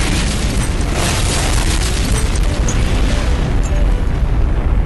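Explosion sound effect from a nuclear-blast clip: a loud, continuous blast noise, heaviest in the deep bass, holding steady throughout.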